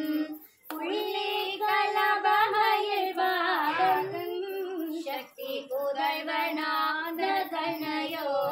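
A woman's voice singing a Tamil devotional song to Murugan in long, drawn-out, ornamented notes, with two short breaks for breath, about half a second in and about five seconds in.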